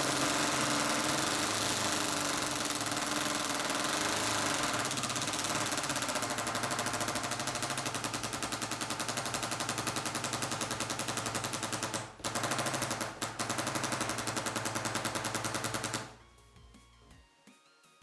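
Ryobi P238 brushless impact driver on speed 2 hammering a long sheetrock screw into wood, a fast continuous rattle of impacts. It pauses briefly twice about twelve and thirteen seconds in, then stops about sixteen seconds in.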